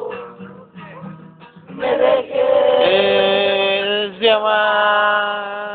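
A song: a man sings a Spanish love ballad over plucked guitar, holding a long note from about two seconds in that steps to a new pitch just after four seconds.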